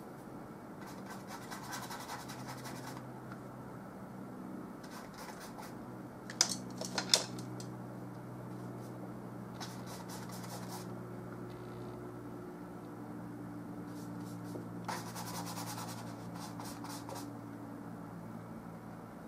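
Oil paintbrush scrubbing and mixing paint on a palette and stroking onto canvas, in short scratchy bursts, with two sharp taps about six and seven seconds in. A steady low hum runs underneath.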